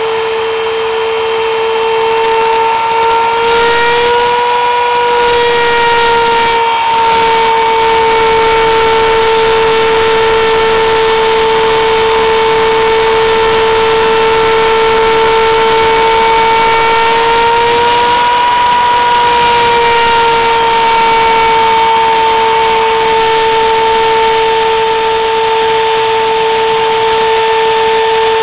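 Homemade CNC mill's router spindle whining steadily at high speed as it engraves lettering into a wooden board. The pitch rises briefly twice, about four and about eighteen seconds in, and settles back each time.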